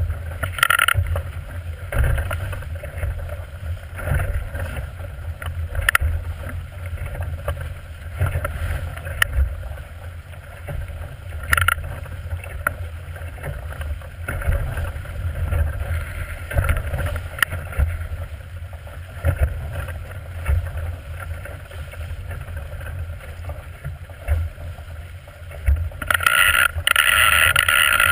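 Water rushing and splashing against the hull of a small plywood sailboat sailing heeled in choppy water, with wind buffeting the microphone as a low rumble. Sharp splashes of spray come every few seconds, and a louder rush of spray breaks over the bow near the end.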